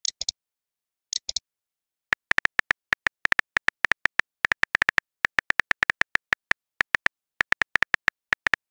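Phone keyboard tap sounds from typing a chat message: short, identical clicks, one per key press, coming irregularly at about three to five a second. Near the start and again about a second in there are a few brief, hissier clicks.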